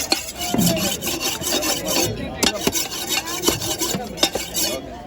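Rapid, rhythmic rasping of a blade scraping in short repeated strokes, with a brief pause about two seconds in.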